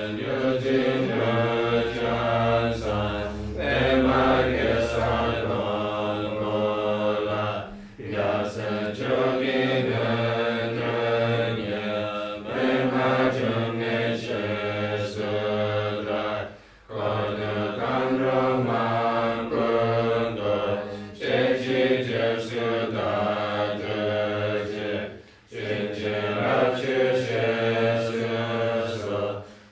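A Buddhist mantra sung as a melodic chant, repeated in long phrases of about eight seconds with short breaks between them.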